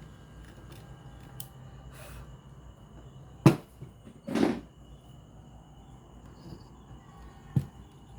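A few sharp clicks and a short rustling knock, the loudest about three and a half seconds in, over a faint steady hiss and thin high whine.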